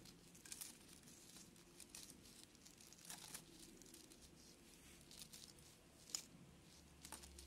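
Near silence with faint rustling and a few light clicks from rhinestone bracelets being handled, with one slightly louder click about six seconds in.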